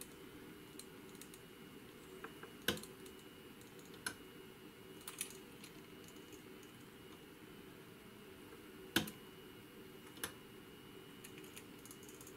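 Push-buttons on a Kelatron digipot 5 temperature calibrator clicking as the simulated temperature is stepped down. There are about five sharp clicks a second or more apart, the loudest about a quarter of the way in and about three-quarters of the way in, over a faint steady hum.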